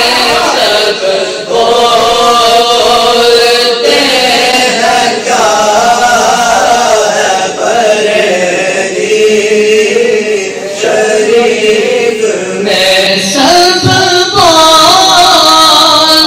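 Male voices chanting an unaccompanied Urdu naat in long, drawn-out held notes, the phrases separated by short pauses.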